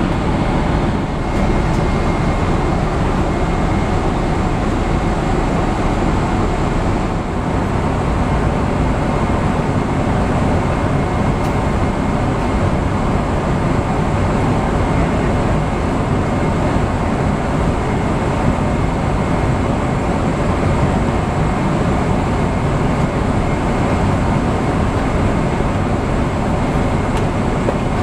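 Steady cabin noise inside a Boeing 777-300ER: an even rush of air and engine sound, heaviest in the low end, with a faint steady high whine.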